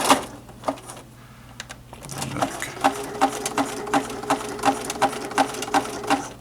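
Sewing machine stitching: a fast run stops at the start, then after about two seconds it runs again more slowly, about three needle strokes a second over a steady motor hum, going over the seam a second time as a reinforcing stitch, and stops near the end.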